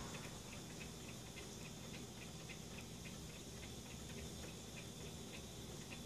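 Small tabletop fountain's water spilling from a bamboo spout into its glass bowl: a faint, steady trickle with fast, light ticking of drops.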